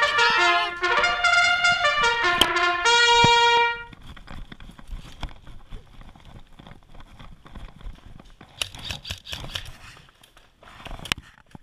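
A trumpet-like brass fanfare plays a short melody and ends on a held note, then cuts off about four seconds in. Quieter outdoor sound follows, with scattered clicks and rustling that grow louder for a moment near the end.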